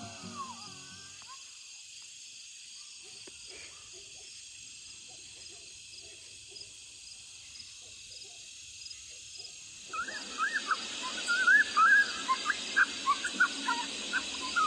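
A steady high-pitched chorus of night insects. About ten seconds in, a loud burst of rapid, high coyote yips and short yelping howls suddenly starts and carries on to the end.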